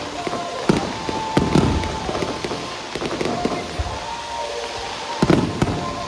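Aerial fireworks shells bursting overhead: loud booms in pairs, about a second in and again about five seconds in, with crackling between them.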